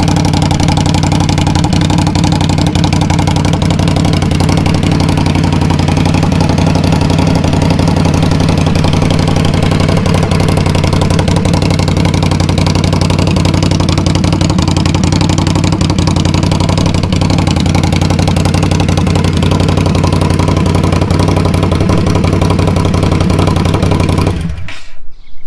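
Indian Scout Bobber's V-twin idling steadily and loud through short York GP Shorty slip-on mufflers. The sound cuts off near the end.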